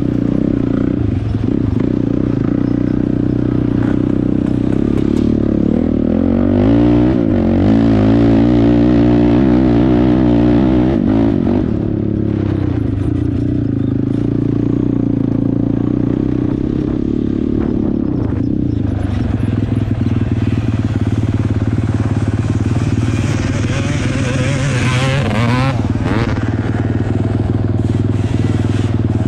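Off-road motorcycle-type engine running steadily under riding. The engine speed swings up and down about a quarter of the way in and again near the end.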